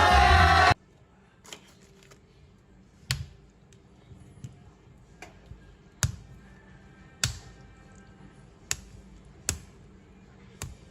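Background music that cuts off abruptly within the first second, then sharp, irregular clicks and taps of hard plastic, about nine over ten seconds, as toy action figures are handled.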